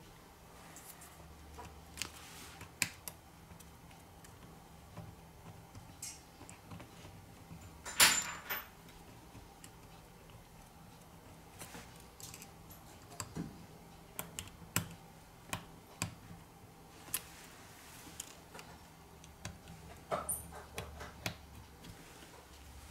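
Scattered small clicks and taps from a plastic pry tool and fingertips on a smartphone's motherboard as flex-cable connectors are pressed into place, with one sharper click about eight seconds in.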